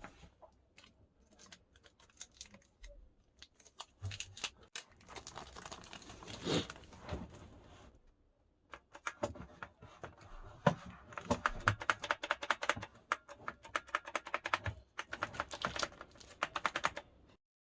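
Handling noise: a rapid, irregular run of light clicks, taps and crinkling, with a pause about eight to nine seconds in, then a denser run that stops shortly before the end.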